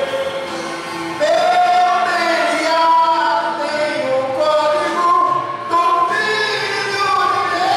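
A man singing a gospel hymn into a microphone through a PA system, in long held notes that slide from one pitch to the next.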